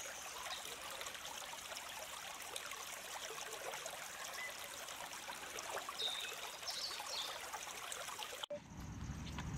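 Shallow stream running over stones, with small splashes as a banana leaf is dipped and rinsed in the water. About eight and a half seconds in, the sound cuts abruptly to a different, lower-pitched background.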